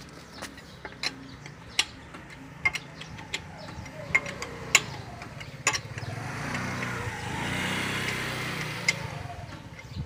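Sharp metallic clicks and knocks of a lug wrench on a Toyota Fortuner's wheel lug nuts as they are tightened. A low engine hum runs underneath and swells as a motor vehicle passes, from about six to nine seconds in.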